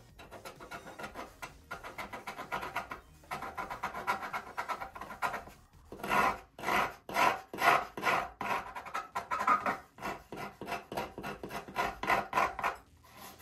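Hobby knife blade scraping a painted surface in quick repeated strokes, roughing up the paint so CA glue will stick. The strokes are faint and close together at first, then louder and more separate, about two a second, from about halfway in.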